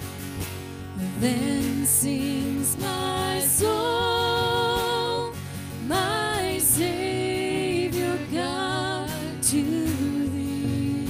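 Live contemporary worship song: a woman sings lead over acoustic and electric guitar, holding long notes with vibrato.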